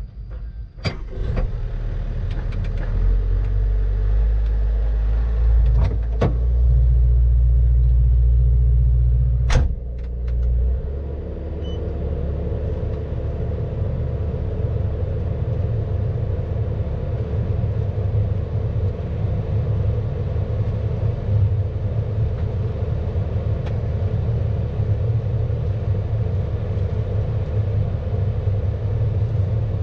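Hydraulic excavator's diesel engine running, heard from inside the operator's cab, a loud low rumble. It is heavier for the first ten seconds or so, with three sharp clicks, then settles into a steadier running.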